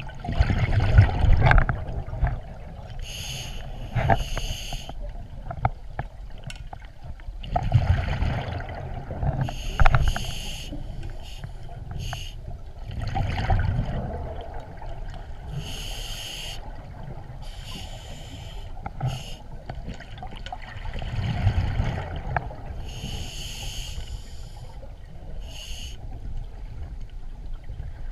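A scuba diver breathing underwater through a regulator: short hissing inhalations, and about four louder rumbling bursts of exhaled bubbles several seconds apart.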